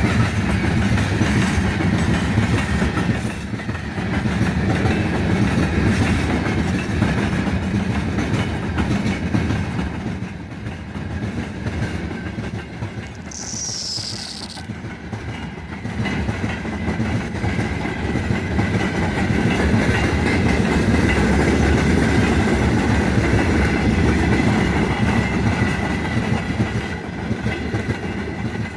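Freight train wagons rolling past, wheels clattering steadily over the rail joints. About halfway through there is one brief high, falling whistle.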